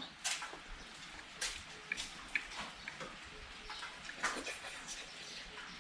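Faint, scattered knocks and clinks of kitchen utensils and dishes being handled, a few short ones spread irregularly, over a steady low hiss.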